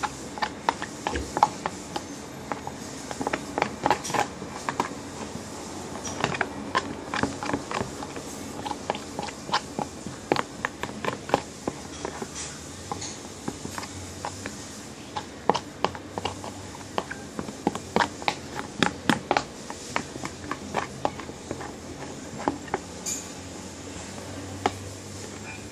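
A spoon stirring a thick mix of white glue and Lifebuoy soap in a clear plastic tub, clicking and scraping against the plastic sides in quick, irregular strokes, fewer near the end.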